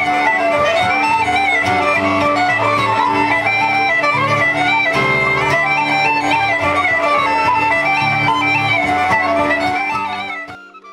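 Bagpipes, wooden flute and acoustic guitar playing a folk tune together, the pipes' steady drone under the melody. The music fades out near the end.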